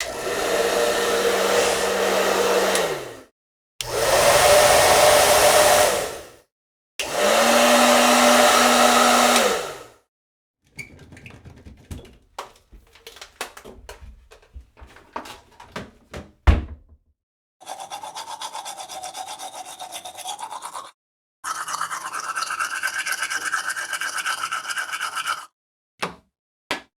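A run of separate stock sound effects with short silent gaps between them: three loud blasts of rushing noise, each about three seconds long; then a stretch of scattered clicks and rattles ending in a sharp knock; then two steady buzzing hums and a couple of short blips.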